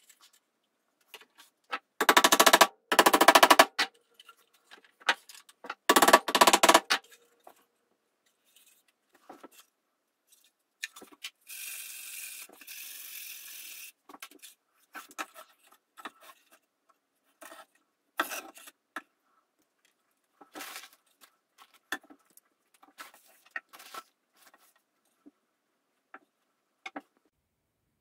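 Woodworking at a table: two loud bursts of rapid rattling early on, a few seconds of steady hiss in the middle, then scattered light knocks and clicks of wooden pieces being handled.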